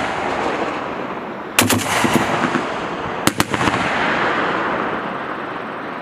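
M2 .50 caliber heavy machine gun firing two short bursts: about five rounds a little over a second and a half in, then about three rounds a couple of seconds later. The reports echo across the range and die away slowly between and after the bursts.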